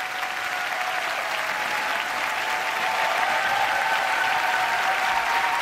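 Large studio audience applauding steadily, welcoming a performer onto the stage, the clapping growing slightly louder with a few faint steady tones over it.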